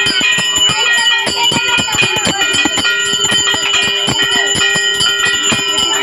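Hindu temple bells ringing rapidly and without pause: many strikes a second over a steady metallic ring.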